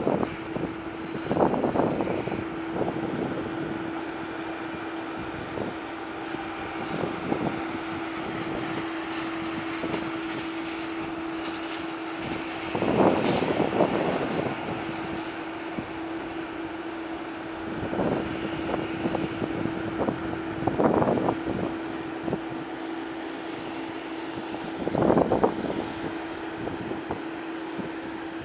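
Steady, even hum of an Embraer E195 airliner on the apron during pushback, one constant tone throughout. Several gusts of wind buffet the microphone.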